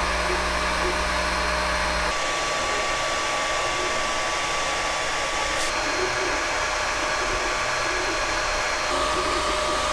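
Creality Ender 3 V2 3D printer running a print: a steady whir of its cooling fans with faint whining tones from the motors. The hum and tones change abruptly three times as separate clips of the printer at work are joined.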